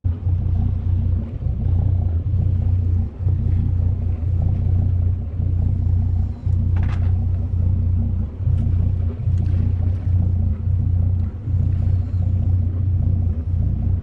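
Boat engine running steadily under way, a loud low rumble. A brief hiss comes about seven seconds in.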